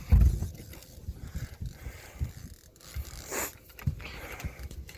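Scattered low thumps and knocks on a fishing boat while a fish is being landed, loudest right at the start, with a short rushing noise about three seconds in.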